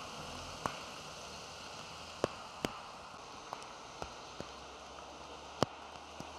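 Steady rain falling, with sharp, irregular taps of single drops landing close by, about one every second or so.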